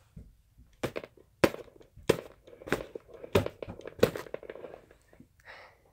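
A plastic toy wand being swung and struck against things: six sharp knocks about two-thirds of a second apart.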